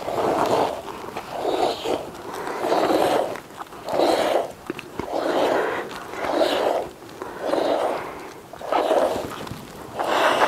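Milk squirting into a pail as a cow is milked by hand: a regular series of short hissing squirts, about one every second or so.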